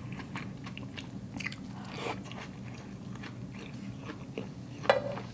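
Close-miked chewing of a mouthful of hot pot food, with many small wet mouth clicks and one sharper click about five seconds in.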